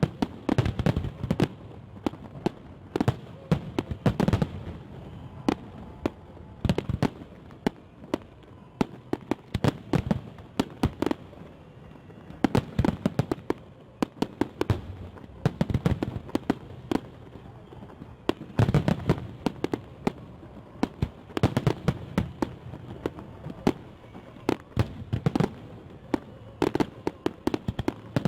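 Fireworks salute: sharp bangs and pops going off in dense clusters every few seconds, with quieter crackling between the clusters.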